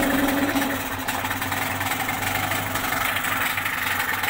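ALLFA CG outboard motor running steadily in a water test tank, a continuous even engine drone.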